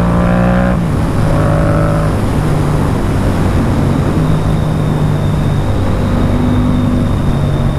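Yamaha MT-07's parallel-twin engine under strong wind noise. Its note rises until under a second in, then breaks off and drops at an upshift, and it runs on at a steadier, lower pitch.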